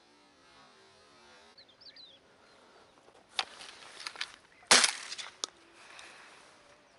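A single shotgun shot just under five seconds in, a sharp crack that trails off over about half a second, with a few lighter clicks and knocks around it. A few faint, high bird chirps come about two seconds in.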